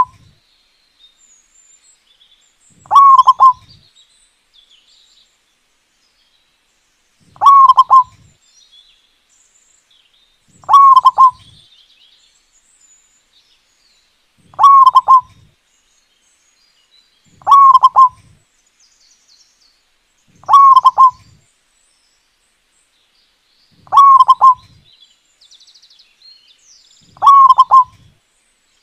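Zebra dove (perkutut) singing: eight short, loud phrases of rapid cooing notes, repeated every three to four seconds. Faint high chirps from other birds sound between them.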